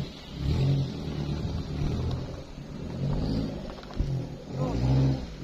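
A campervan's engine pulling in at low speed, its revs rising and falling in about four surges, the last and loudest near the end.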